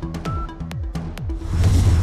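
Electronic news-bulletin music with a fast ticking beat and repeated falling bass notes, swelling into a loud rush of noise near the end.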